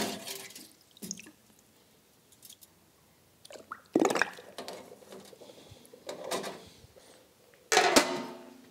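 Stainless-steel wire basket clinking against an ultrasonic cleaner's steel tank as it is lowered into the water bath, with water dripping. A sharp clatter comes about four seconds in. Near the end the steel lid is set down on the tank with a louder clank that rings briefly.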